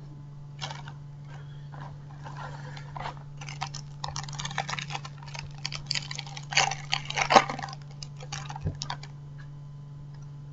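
Plastic trading-card packet being torn open and crumpled by hand, an irregular crackling and rustling that grows busiest in the middle and thins out near the end, over a steady low hum.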